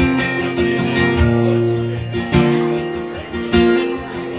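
Acoustic guitar strummed solo, with strong chord strokes about once a second and the chords ringing on between them.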